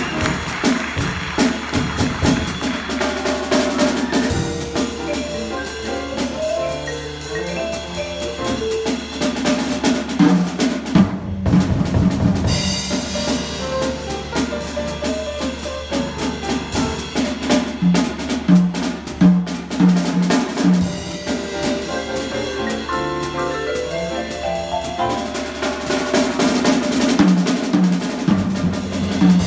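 Small jazz group of piano, vibraphone and drum kit playing, with the drum kit prominent under the piano and vibraphone lines.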